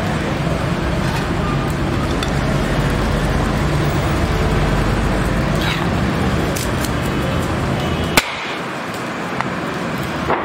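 Steady street-traffic noise with a low rumble and a few faint clicks. A sharp click comes near the end, after which the rumble drops.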